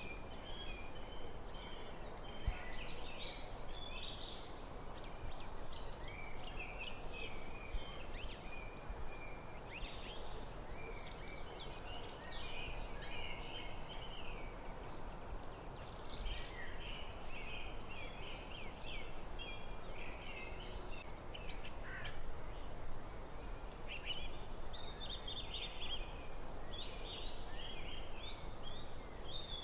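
Forest birdsong: several small birds chirping and trilling in quick, overlapping phrases almost without pause, over a steady low background hiss.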